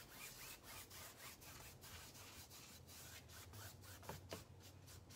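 Paintbrush scrubbing acrylic paint across a damp stretched canvas in faint, quick back-and-forth strokes, about three or four a second, with two brief squeaks about four seconds in.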